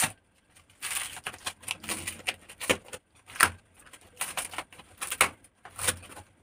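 Paper envelope being ripped open by hand: a run of irregular tearing and crinkling noises as the firmly glued flap is pulled apart.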